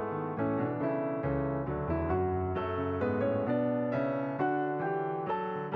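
Background piano music: single notes and chords struck about twice a second, each fading after it is played.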